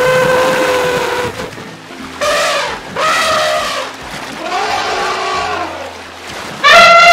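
Elephants trumpeting: a string of five drawn-out, high-pitched calls, the last and loudest starting near the end.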